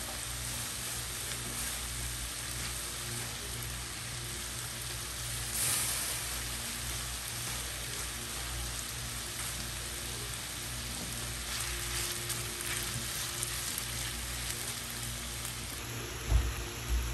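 Chicken pieces and diced tomato frying in a non-stick pan, a steady sizzling hiss as the chicken's juices cook off, with a short louder swell about six seconds in. A few dull knocks come near the end.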